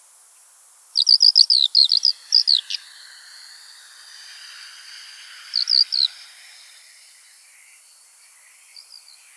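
Eurasian skylark calling: a quick run of short, high chirps about a second in, lasting under two seconds. A shorter burst of a few chirps follows around the middle, and one faint note comes near the end, over a faint steady background.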